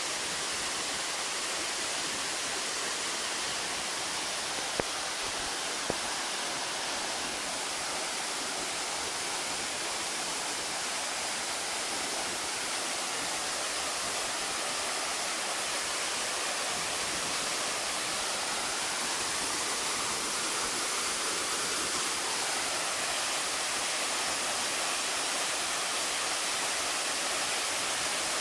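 Steady rushing of flowing water, with two faint clicks about five and six seconds in.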